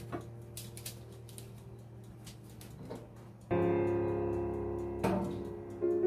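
Background music of slow, sustained keyboard chords, with the chord changing and getting louder about three and a half seconds in. A few faint clicks sound in the first second and a half.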